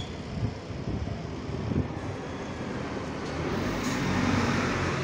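Diesel bus engine idling with an uneven rattle. A coach then drives past close by, and its engine and tyre noise swells to the loudest point about four seconds in.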